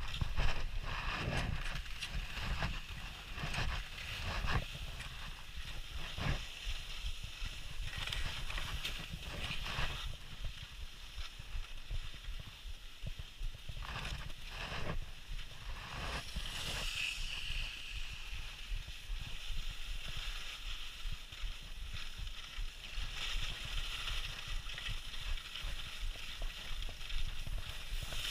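Skis sliding over snow, with several short scrapes at irregular intervals as the edges bite in turns, over a steady rumble of wind buffeting the head-mounted camera's microphone.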